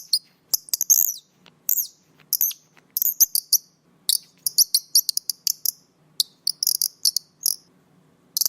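Kingfisher calling: a rapid string of shrill, very high-pitched notes in quick clusters separated by short pauses.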